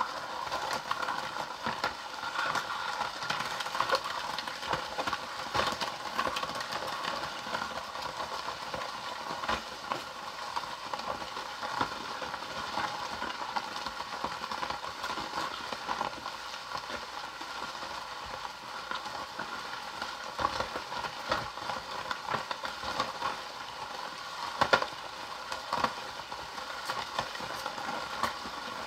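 Baskin Robbins 31 Flavors Ice Cream Cake Maker toy being turned by hand, churning the ice cream mix as it freezes: a steady scraping, rattling churn with scattered small clicks.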